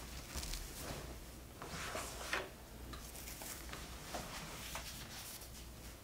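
Soft rustling and handling noises of clothing and movement as a person settles into an upholstered armchair, with one brief sharper click or knock about two seconds in.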